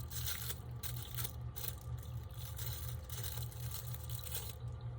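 Plastic wrapping crinkling and rustling in irregular bursts as small items are unwrapped by hand, stopping about four and a half seconds in, over a steady low hum.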